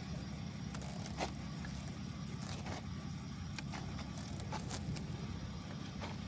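Sprinter van engine running with a steady low hum, with scattered light clicks and rattles over it.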